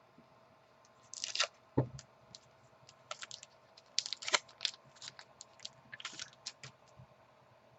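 Trading cards and a foil pack wrapper being handled, giving scattered crinkles and clicks.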